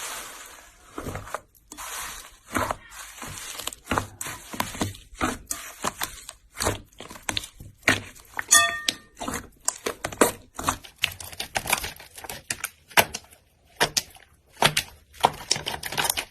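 Slime being squeezed and pressed by hand, giving a run of irregular sticky clicks and pops, several a second, with a short squeak about halfway.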